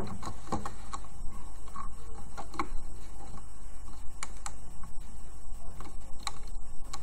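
Light, irregular clicks and taps of a loom hook working rubber bands against the pegs of a plastic band loom, over a steady low hum.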